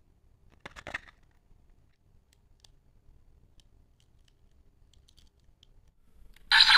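Faint plastic clicks and a short rustle as a DX Peter Fantasista Wonder Ride Book toy is handled. Right at the end the toy's electronic sound effect, a synthetic voice with music, starts loudly.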